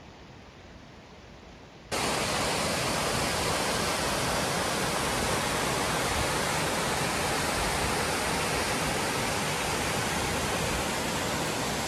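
Faint steady hiss. About two seconds in, it cuts abruptly to the loud, steady rush of a mountain waterfall cascading down rock slabs into a pool.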